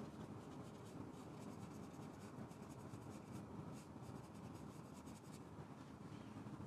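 Synthetic paintbrush scratching oil paint onto an acrylic-primed aluminium panel: faint, rapid strokes that stop about five seconds in, over a steady low hum.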